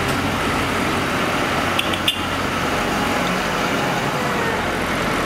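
Modern farm tractor's diesel engine running steadily as the tractor drives past close by. There is a brief click with a short high ring about two seconds in.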